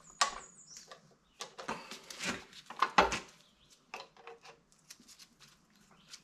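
Side cutters clicking and scraping against the outboard driveshaft as they work the small metal impeller drive key out of its keyway: an irregular run of sharp metal clicks and clinks, loudest about a quarter second in and again about three seconds in.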